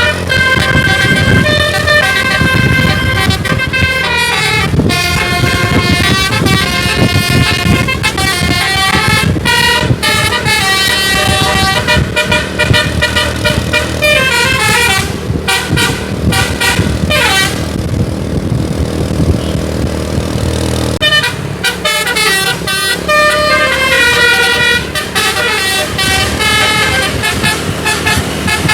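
Telolet multi-tone musical air horn on a bus playing quick runs of changing notes over the bus's engine rumble. About halfway through, a few notes slide downward, and the tune pauses for a few seconds before starting again.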